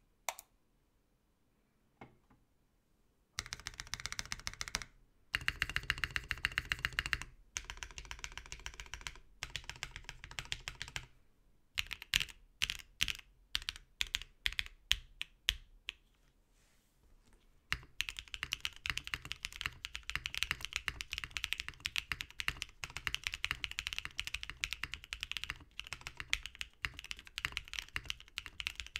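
Typing on a FreeBird TKL aluminium keyboard built with lubed and filmed Durock POM linear switches, a POM plate, an O-ring friction mount and PBT keycaps. Bursts of fast keystrokes begin a few seconds in, then a run of slower, separate strokes. After a brief pause, steady fast typing runs to the end.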